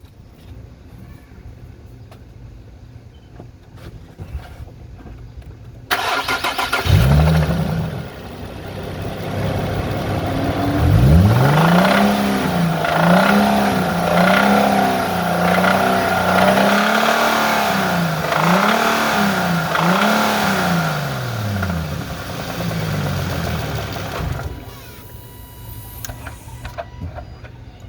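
Nissan 370Z's 3.7-litre V6 running, with a knock that the owner takes for rod knock or lifter knock. It idles steadily at first, gets suddenly louder about six seconds in, is blipped up and down about eight times, then drops back to idle near the end.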